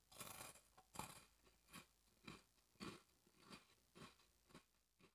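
Someone chewing crunchy fried rice crackers (agesen), a quiet crunch about twice a second that fades toward the end.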